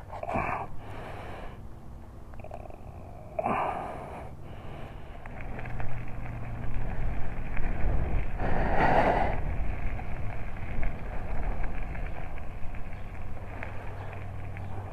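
Road and traffic noise while riding, with a steady low hum under it. A vehicle passing swells up three times, loudest about nine seconds in.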